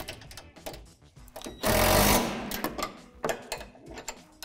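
Steel wrench tightening the nuts on a basketball rim's steel housing: a run of quick metal clicks, with a louder, harsher burst about two seconds in.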